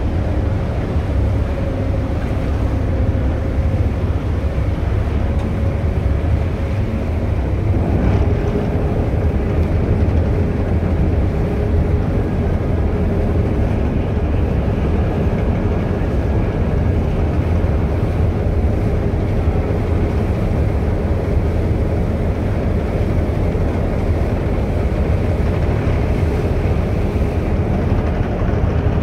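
Harbour ferry's engine running under way with a steady low rumble.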